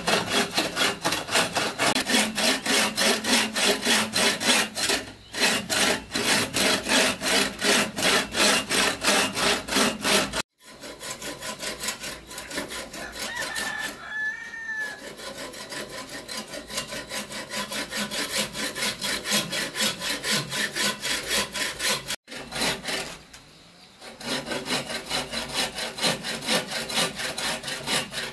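Wood being cut with a hand saw in quick, even back-and-forth strokes, about four a second, stopping briefly a few times. A rooster crows once in a pause, about fourteen seconds in.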